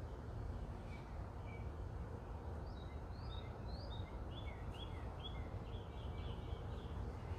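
A wild songbird chirping: a few short, high chirps about a second in, then a quick run of them, about three a second, through the second half, over a low, steady outdoor rumble.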